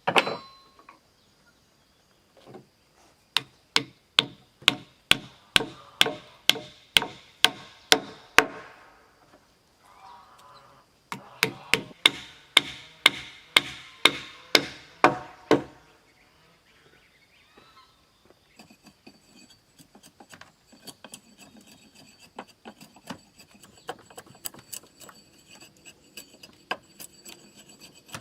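A hand tool striking wood in two runs of steady, evenly spaced blows, about two a second, followed by lighter tapping and scraping on wood.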